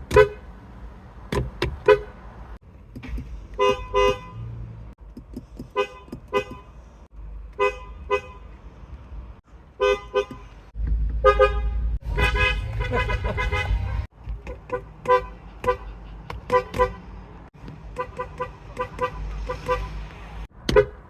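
Car horn sounded in many short toots, often in pairs, with one longer blast of about three seconds near the middle.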